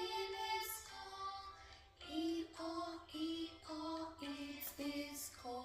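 Music with a high voice singing a simple melody in short held notes, as in a children's song.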